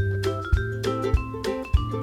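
Background music: mallet-percussion melody with a bass line and a steady beat.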